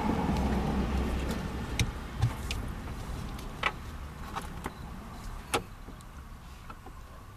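A low rumble that fades away over the first few seconds, with about half a dozen separate metallic clicks and clinks from hand tools and sockets.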